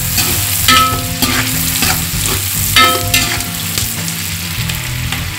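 Sliced onions sizzling as they sauté in hot oil and ghee in a large aluminium pot. A metal perforated ladle stirs them, scraping against the pot every second or so, and the pot rings briefly after some strokes.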